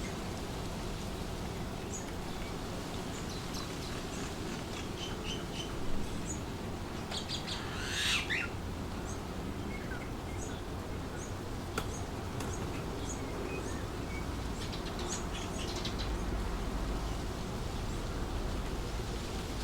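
Wind blowing steadily through trees, with small birds chirping on and off above it and one louder bird call about eight seconds in.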